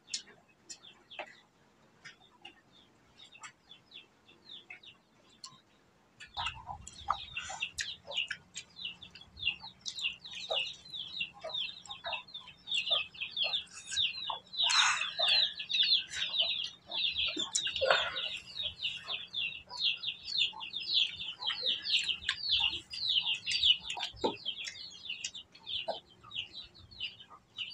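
Domestic chickens calling: a fast, steady run of short high chirps that starts about six seconds in and keeps going, several a second. A low steady hum runs under it from the same point. Before that there are only a few light clicks.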